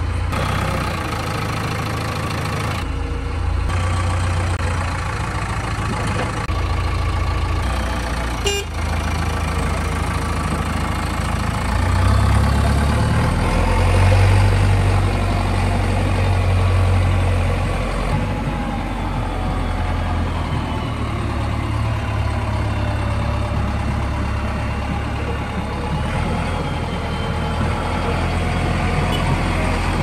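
JCB 3DX backhoe loader's four-cylinder diesel engine running steadily, growing louder for a few seconds midway through. A single sharp click about a third of the way in.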